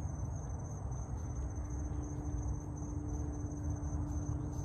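Insects trilling steadily in two high, unbroken tones, over a constant low rumble with a faint steady hum.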